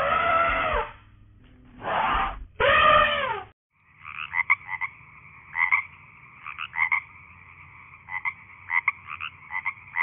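An elephant trumpeting three times, each call short and arching in pitch. After a brief break, a chorus of frogs calling steadily, with short croaks repeating over a continuous trill.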